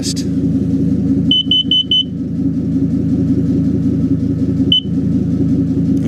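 Household smoke/carbon monoxide detector giving four short, quick, high-pitched beeps about a second in and a single beep near the end, still running through its self-test. Under it, the steady idle of a 2005 Ford F-350's 6.8L Triton V10, heard close to the tailpipe.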